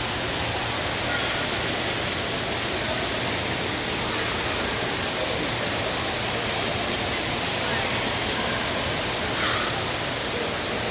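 A steady, even rushing noise, like falling water or moving air, with no change in level; a faint brief sound rises above it about nine and a half seconds in.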